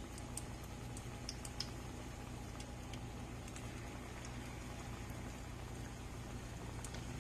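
Saltfish fritter batter frying in hot oil in a pan: a steady sizzle with scattered small crackles and pops.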